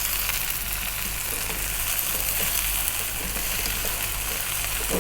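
Stir-fry sizzling steadily in a wok of hot corn oil on high heat, just after fried battered chicken pieces have gone in with the broccoli, onion and garlic.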